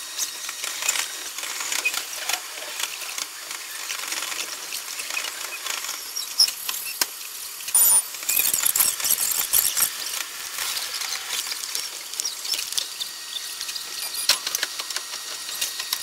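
Train running noise heard from inside the carriage: steady rattling and clicking, with a louder, brighter stretch of high squealing and hissing about seven to nine seconds in.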